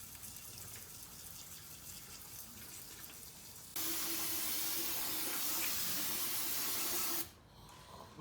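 Aerosol can of brake cleaner spraying into an open differential housing: one steady hiss of about three and a half seconds that starts about four seconds in and cuts off suddenly.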